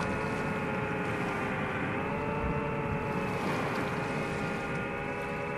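FPV quadcopter drone's motors and propellers whining steadily, several close pitches layered together, dipping slightly and recovering a couple of times as the throttle eases.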